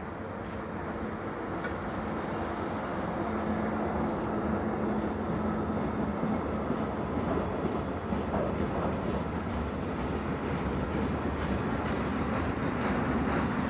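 Freight train of empty Eas open wagons hauled by an ÖBB class 1116 Taurus electric locomotive rolling past, growing louder. A steady hum is heard a few seconds in, and later the wheels set up a run of rapid clicks and clatter.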